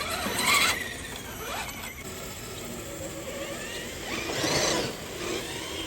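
Electric motor and geared drivetrain of an RC rock crawler whining as it drives, the pitch rising and falling, with two louder bursts: one about half a second in and one about four and a half seconds in.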